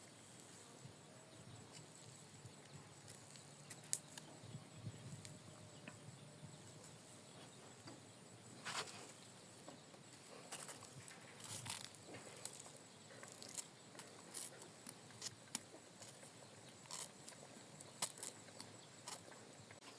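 Faint quiet background with scattered, irregular light clicks and taps of small handling sounds, a few of them clustered between about 8 and 19 seconds in.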